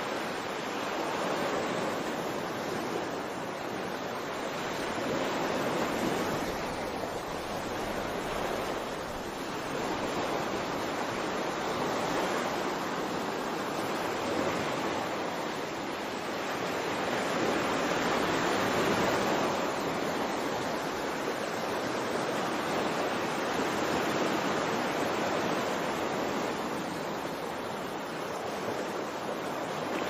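Ocean surf: a steady rush of waves washing in, swelling and easing every few seconds.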